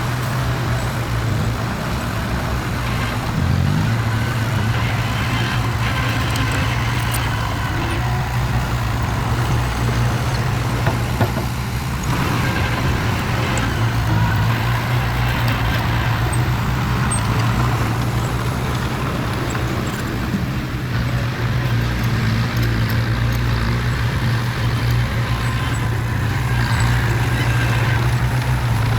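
Heavy construction vehicle's engine running steadily, a constant low drone with no change in speed.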